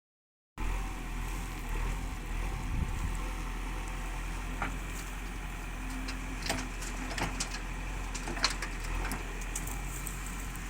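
Heavy machinery engine running steadily, with several sharp clanks from about four and a half seconds in.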